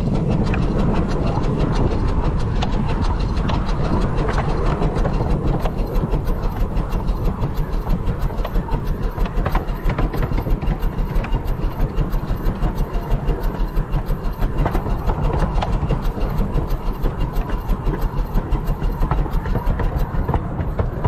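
The 15-inch gauge steam locomotive River Mite and its train running, a loud, noisy, steady sound that takes on a regular beat of about three pulses a second from about six seconds in.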